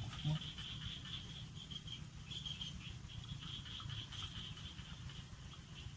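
Insects chirping in a rice paddy: a high, pulsing, cricket-like trill that keeps going, over a low rumble.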